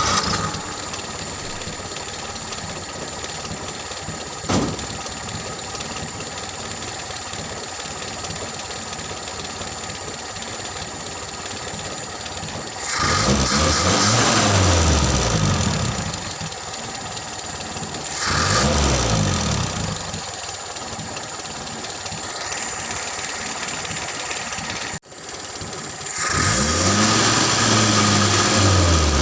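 Toyota Kijang 5K four-cylinder carburetted petrol engine running at a steady idle, revved up and let fall back three times, each rise in pitch lasting two to three seconds. A single short knock comes about four and a half seconds in.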